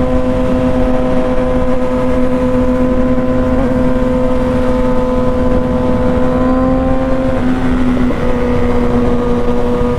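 Kawasaki ZX-6R inline-four engine held at steady high revs while riding, over heavy wind rush on a helmet-mounted mic. The pitch eases down slightly twice near the end.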